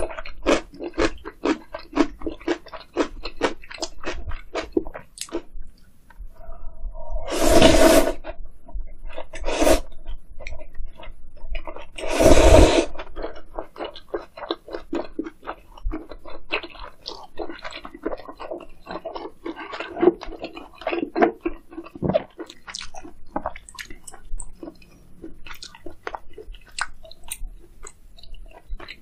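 Close-miked chewing of pork and kimchi from a bowl of spicy meat gukbap: wet, crunchy mouth sounds with many small clicks. Two louder rushes of sound, each about a second long, come about 8 and 12 seconds in.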